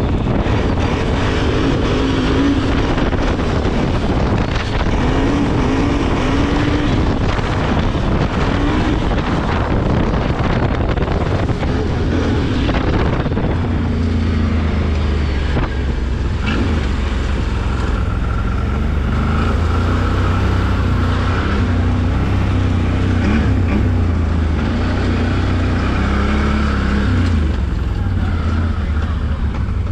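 Can-Am Renegade ATV's V-twin engine running while riding a gravel trail, with tyre and wind noise. About halfway through it eases off to a steady low rumble at slow rolling speed.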